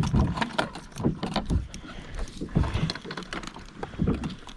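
Irregular knocks and clicks of hands and gear working on a plastic fishing kayak, the handling of a freshly caught fish.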